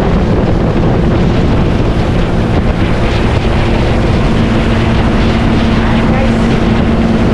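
Motorboat engine running steadily under way, with wind buffeting the microphone; a steady hum in the engine note grows stronger about four seconds in.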